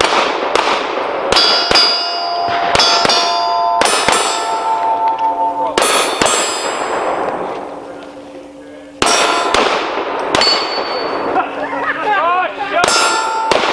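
Pistol shots fired in quick runs at steel targets, each hit making the steel plate ring with a clear metallic tone that hangs on and fades. There is a lull in the middle of the string, with the last rings dying away before the shots resume.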